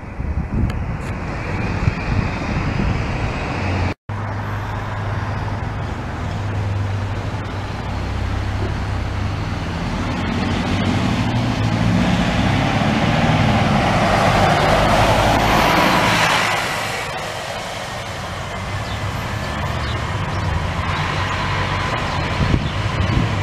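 City bus engine and tyres passing at the roadside: a steady low engine hum with road noise that swells to a peak about two-thirds of the way through as the bus goes by, then fades back into traffic.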